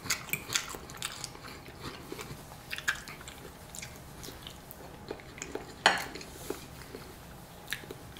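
Close-up eating sounds: chewing soft food, with a metal knife and fork clicking and scraping on a ceramic plate. One louder sharp click about six seconds in.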